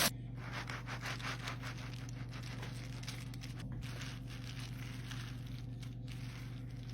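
Scraping and rustling from hands working with the saved pumpkin seeds, in many short irregular strokes, over a steady low hum.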